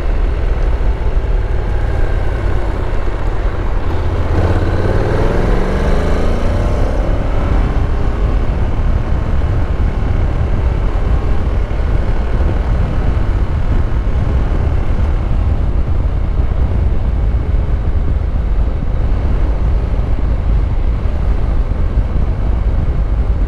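Honda NC750X DCT motorcycle on the move, heard from the rider's camera: a steady low rush of wind and road noise over the running engine. About four to seven seconds in, a sound briefly glides in pitch.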